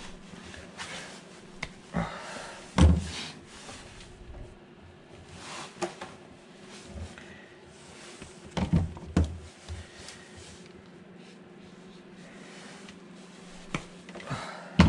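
Scattered sharp clicks and clunks with some rustling, a few seconds apart, the loudest about three seconds in: electrical wires being cut to length and handled.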